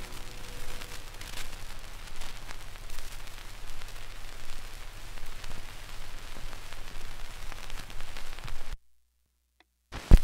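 Shellac 78 rpm record surface noise once the song has ended: steady hiss and crackle with faint scattered ticks over a low hum. It cuts to dead silence near the end, broken by one sharp, loud click.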